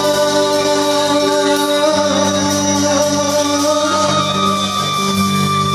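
An Indian song playing: music with singing over sustained instrumental notes, steady and loud.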